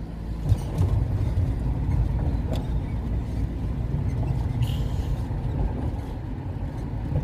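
Road noise heard inside a moving car as it drives over a bridge: a steady low rumble from the tyres and engine that grows louder about a second in.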